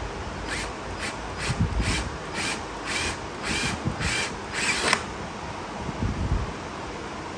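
Cordless hand power tool run in about eight short trigger bursts, roughly two a second, each a brief whir of the motor spinning up. The last few bursts are a little longer, and the run stops about five seconds in.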